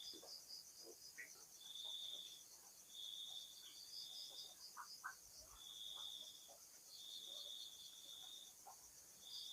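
Faint night chorus of crickets. Short high trills come every second or two over a steady, fast-pulsing high drone of more insects.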